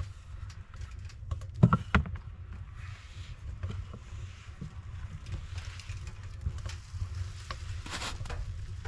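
Crusty loaf being broken apart and cut with a knife on a wooden board: scattered crackles of crust, two sharp knocks about two seconds in, and a longer crackle near the end, over a steady low rumble.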